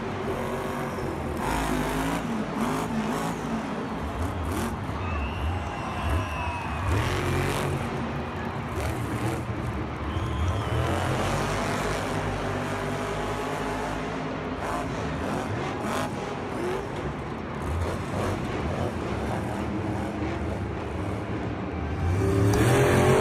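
Monster truck's supercharged V8 engine revving up and down as the truck drives and turns on the dirt arena floor, over a haze of crowd noise. It gets louder near the end.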